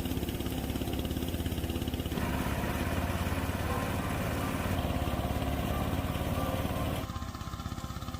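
A small engine running steadily with a fast, even pulse; the sound changes abruptly about two seconds in and again near the end.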